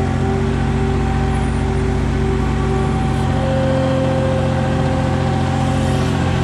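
Engine of a Caterpillar Navigator 5500 piggyback forklift, running steadily as the machine drives.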